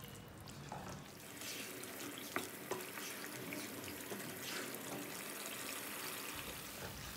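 Beef korma frying in a nonstick kadhai as a wooden spoon stirs it: the gravy is being fried down (bhuna) to cook off its water. The frying gets louder about a second in, with a couple of light knocks of the spoon on the pan.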